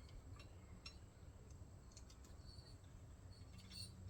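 Faint, scattered clicks and light metal ticks as the carburettor and throttle linkage are worked loose from a Tecumseh lawnmower engine.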